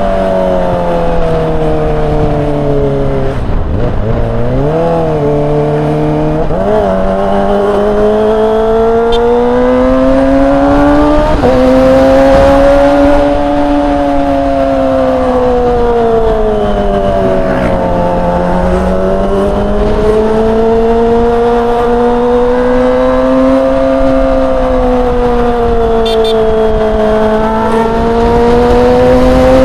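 Kawasaki ZX-25R's 250 cc inline-four heard from the saddle through a Yakuza R7 aftermarket exhaust, its high-pitched note rising and falling with the throttle on a road ride. About 3 to 7 seconds in the pitch drops sharply, then comes a few quick rev blips, typical of downshifting. After that it climbs and sags slowly through the gears.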